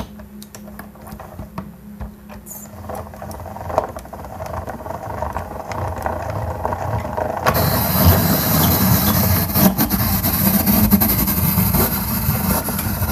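Tabletop rotary apple peeler turning an apple on its spindle. It sets up a mechanical whirring that grows louder from about 3 seconds in. At about 7.5 seconds a hissing scrape joins it as the blade cuts the peel away in a long strip.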